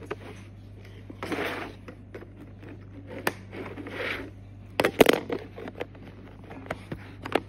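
LEGO plastic train-track pieces being handled and fitted together: scattered sharp clicks and short scraping rustles, with the loudest cluster of clicks about five seconds in.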